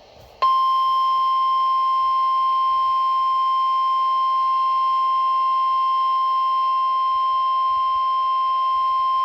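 NOAA Weather Radio warning alarm tone: a single steady tone of about 1050 Hz. It starts abruptly about half a second in and holds unchanged for about nine seconds. It is the signal that a warning broadcast, here a severe thunderstorm warning, is about to follow.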